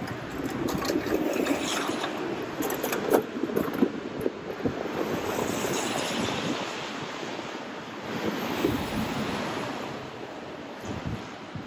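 Street ambience: a rush of passing car traffic mixed with wind on the microphone, swelling through most of the stretch and easing off near the end, with a few faint knocks.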